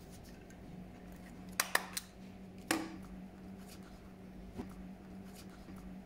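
Hand stapler clicking as it fastens folded banana leaf into a basket cup: three quick snaps about a second and a half in and another a second later, over a low steady hum.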